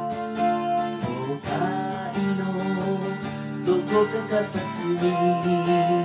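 Gibson acoustic guitar played with a pick and a capo: a solo instrumental passage of chords, struck in regular strokes, with the notes ringing on between them.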